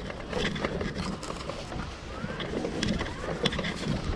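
Bicycle riding noise: a steady rumble with scattered rattling clicks, and faint voices in the background.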